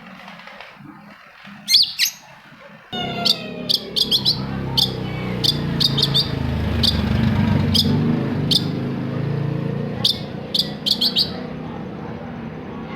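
Long-tailed shrike giving short, sharp call notes, singly and in quick clusters of two to four. A steady low background rumble starts abruptly about three seconds in.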